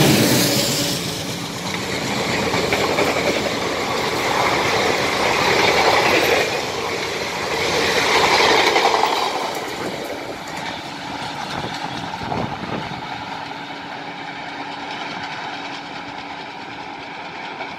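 Passenger coaches of an express train rushing past at speed, wheels running over the rails. The sound swells as each coach goes by, then fades away over the second half as the train recedes.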